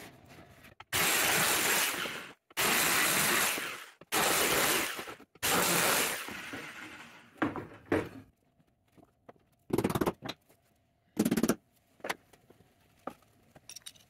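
Four loud bursts of hissing noise, each about a second long, starting and stopping abruptly one after another. They are followed by a few light knocks and two shorter bursts of the same noise near the end.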